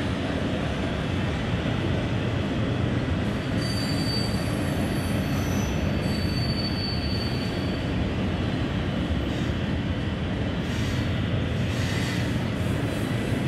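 HO-scale model train running along the layout track: a steady rumble with a thin high squeal about four seconds in and again a couple of seconds later.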